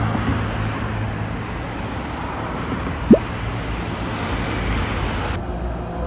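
Steady road traffic noise from cars passing on a street, with one short rising squeak about three seconds in.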